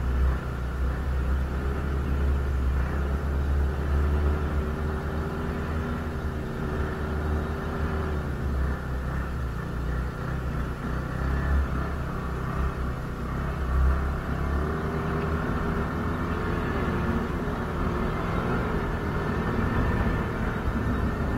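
Snowmobile engine running steadily under way, heard from the rider's seat, with a heavy low rumble that eases off about two-thirds of the way through.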